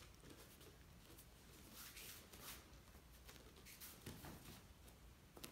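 Near silence: room tone, with a few faint soft scuffs of bare feet on a foam mat.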